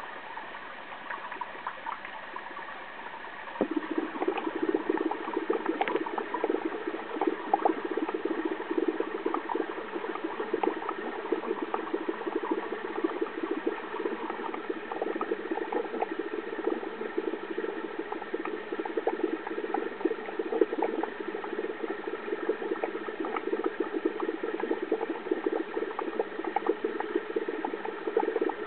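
Aquarium water bubbling and splashing with many small crackles, growing louder about three and a half seconds in.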